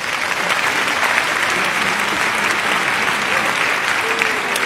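Theatre audience applauding. The clapping swells over the first second and then holds steady.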